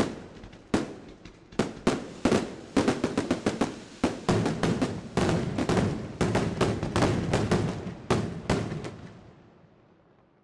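Maltese festa aerial firework shells bursting in quick succession, sharp bangs a few a second with crackle between them. The last bang comes just before nine seconds in, and the sound then dies away.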